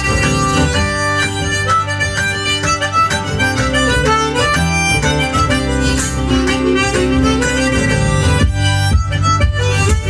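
Live one-man-band music: a harmonica plays a lilting melody over sustained low accompaniment, with percussive hits coming in toward the end.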